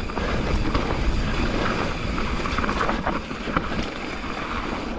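Mountain bike rolling fast down a loose, stony dirt trail: knobby tyres crunching over gravel, the bike rattling, with a few sharp knocks from rocks, all under wind rushing over the microphone.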